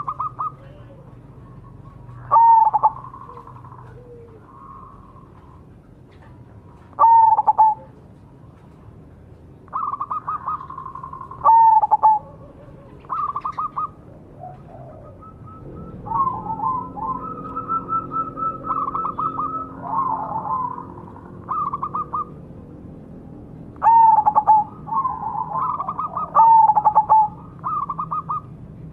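Zebra dove (perkutut) cooing: phrases of quick, staccato, ringing coos about a second long, repeated every few seconds, with a longer run of rapid trilled notes in the middle.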